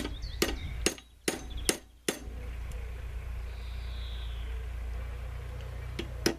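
Hammer striking a centre punch to spread a brass rivet head on an old Suffolk door latch: about six quick metallic blows, a pause of several seconds, then two more near the end. A steady low drone from a distant tractor runs underneath.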